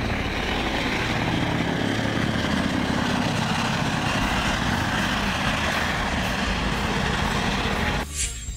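Eurocopter EC135 police helicopter flying low: steady turbine and rotor noise with a deep rumble. The noise cuts off abruptly near the end.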